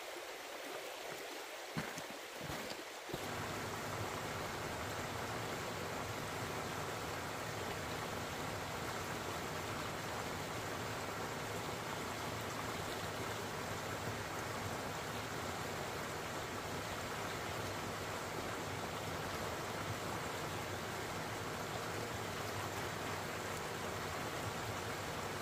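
Stream water pouring over a low weir into a pool: a steady, even rush of falling water that starts about three seconds in. Before it, a quieter stretch of running water with a couple of light knocks.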